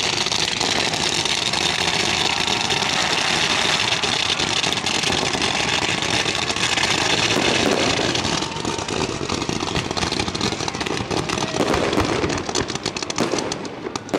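Ground fireworks fountains spraying sparks with a steady, loud hiss. About eight seconds in the hiss thins, and toward the end many sharp crackles and pops break through.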